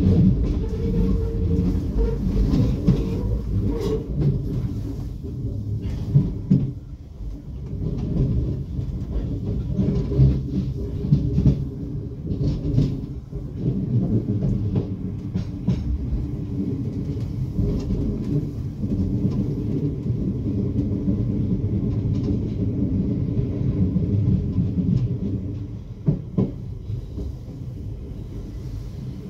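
Class 455 electric multiple unit running over pointwork, heard from inside the rear cab: a steady low rumble with sharp wheel clicks and knocks as it crosses the points and rail joints. It goes quieter in the last few seconds.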